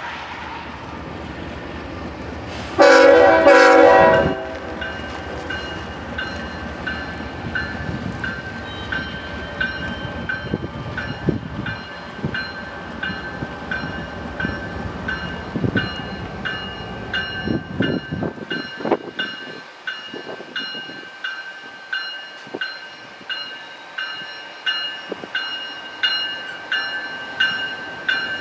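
Freight locomotive horn sounding one loud blast of about a second and a half, about three seconds in, over the rumble and wheel knocks of a passing freight train. A crossing bell then rings steadily, about once a second.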